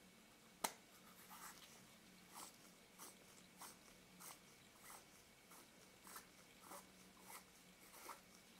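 Faint rhythmic rubbing of a cleaning pad on a lens element, a soft stroke about every half second, wiping spots off the glass. There is one sharp click about half a second in.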